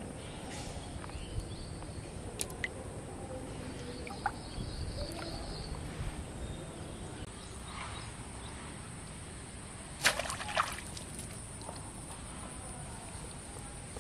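Quiet outdoor ambience with a few small ticks and clicks, then a short loud splash about ten seconds in as a small fish on a hook line is pulled out of shallow water.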